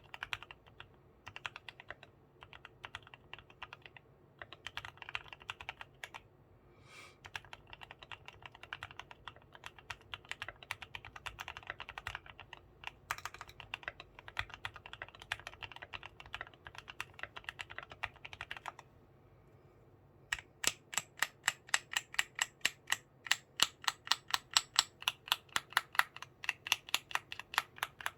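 Keychron Q1 Knob aluminium mechanical keyboard with self-lubricated Gateron black linear switches being typed on quickly. After a brief pause about two-thirds of the way through, the keystrokes come louder and brighter in an even rhythm of about four to five a second.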